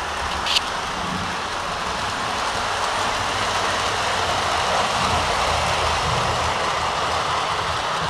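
O gauge model train of Lionel 0-6-0 dockside switcher locomotives and a rotary snowplow rolling on three-rail track: a steady rumble of wheels on rail that grows a little louder around the middle as the train passes close. A brief, sharp high click comes about half a second in.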